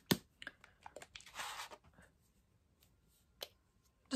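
Small plastic bottle of FolkArt Multi-Surface acrylic craft paint shaken by hand to mix the pigment: a few faint clicks and a short rustle of the paint moving inside in the first two seconds, then a single click and a brief louder rustle near the end.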